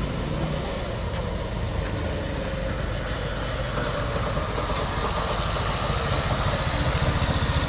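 Engine of a homemade three-wheeled all-terrain motorcycle running as the machine drives up, growing a little louder toward the end as it comes close, with the engine's firing pulses plain near the end.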